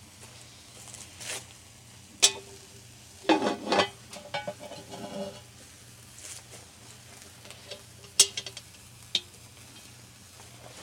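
Cast-iron Dutch ovens and lids being handled: a sharp metal clank about two seconds in, a short ringing clatter a second later, and another sharp clank about eight seconds in.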